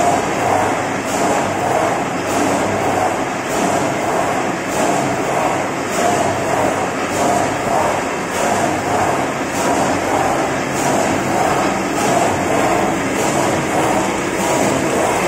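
Paper straw making machine running steadily, its noise pulsing in a regular cycle about every 1.2 seconds.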